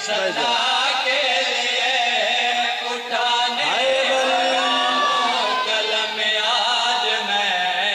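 A man chanting devotional verse into a microphone in a drawn-out, melodic voice, sliding up into long held notes about halfway through.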